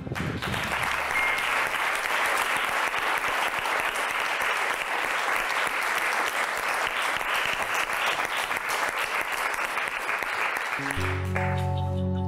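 Studio audience applauding, a dense crowd of hand claps. About eleven seconds in the clapping gives way to music with held notes and low chords.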